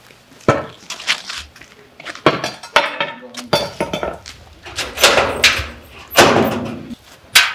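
A run of sharp knocks and bangs on something hard, about a dozen irregular hits, the louder ones ringing briefly.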